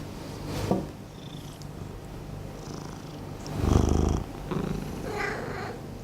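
A domestic cat purring close by, a steady low rumble, with a louder low surge about two-thirds of the way through.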